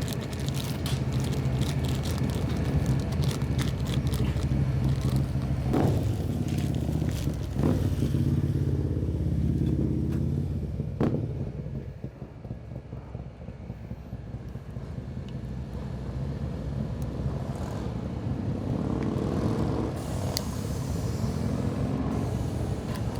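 A steady low mechanical hum, with scrapes, clicks and a few sharp knocks of metal parts being handled.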